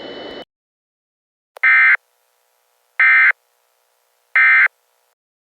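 Emergency Alert System end-of-message signal: three short SAME digital data bursts, about 1.3 s apart, closing the alert. In the first half second, a hiss with a steady high tone cuts off suddenly.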